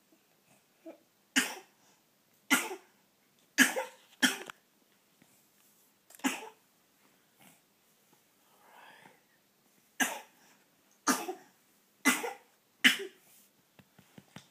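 A coughing spasm: about nine sharp coughs, five in a quick run, a short pause with a faint breath, then four more. The cause of the spasm is unknown.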